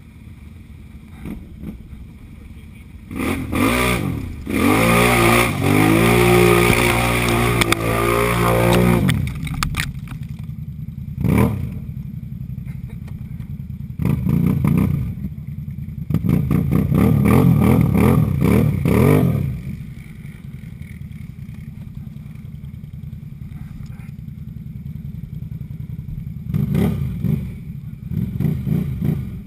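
ATV engine revved hard in repeated bursts, the longest lasting several seconds, with lower steady running between them, as the quad is driven and spun through a deep mud-and-snow bog hole.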